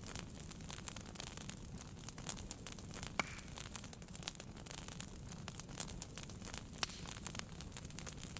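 Wood fire burning in a fireplace: irregular crackles and snaps over a low steady rumble, with a sharper pop about three seconds in and another near seven seconds.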